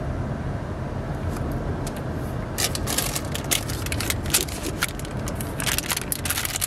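Car running at low speed, a steady low rumble heard inside the cabin. From about two and a half seconds in, irregular crackling and rustling clicks sound on top of it.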